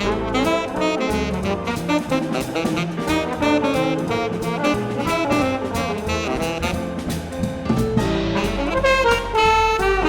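Jazz quintet playing an up-tempo tune: saxophone and trombone lines over piano, bass and drum kit.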